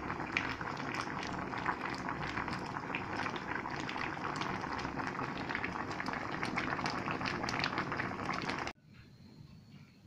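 Pot of cassava chunks boiling hard in water: a dense bubbling with many small pops. It cuts off suddenly near the end.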